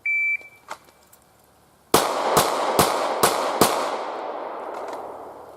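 A shot timer beeps once, then about two seconds later a Glock 17 9mm pistol fires five quick shots, roughly two to three a second, in a timed drill string; a long echo dies away after the last shot.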